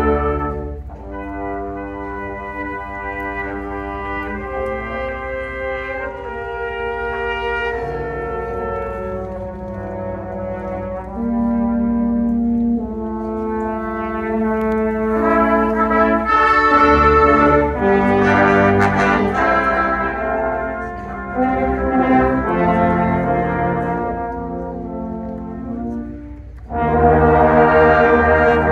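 Brass choir of trumpets, trombone, euphonium and tuba playing held chords. It starts softly, grows louder through the middle and eases off, then comes in loud again suddenly near the end.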